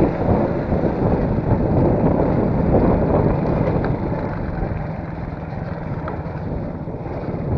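Steady low rumble of a running vehicle engine, with wind buffeting the microphone.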